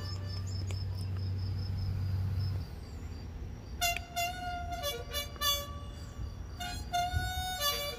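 Harmonica music: a held chord that stops about two and a half seconds in, then, after a short gap, a run of held and short notes from about four seconds on.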